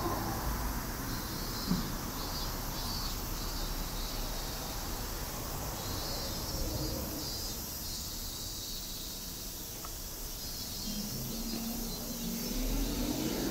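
Outdoor street ambience with insects buzzing steadily in a high, flickering band over a low traffic hum; near the end a passing vehicle's hum grows louder and rises in pitch.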